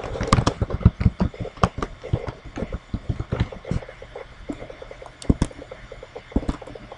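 Computer keyboard typing: a quick run of key clicks that thins out after about three seconds, then a few single mouse clicks near the end.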